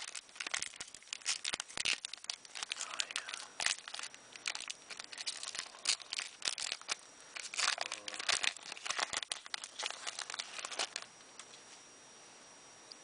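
Foil booster-pack wrapper crinkling and being torn open, in a dense run of crackles that dies away near the end.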